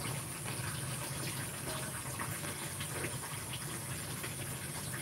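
Steady low background hiss and hum of the room, with a few faint taps.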